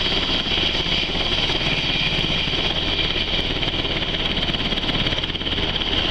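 Sikorsky UH-60 Black Hawk helicopter taxiing with its rotors turning: a steady high turbine whine from its twin T700 turboshaft engines over a fast, even beat of the rotor blades.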